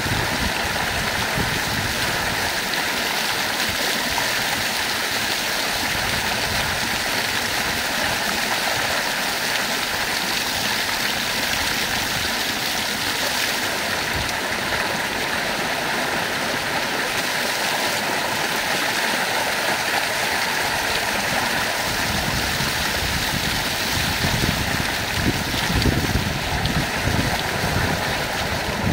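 Water pouring steadily in a sheet over the edge of a concrete tank wall and splashing down onto a man standing under it. In the last several seconds uneven low rumbling comes in under the water noise.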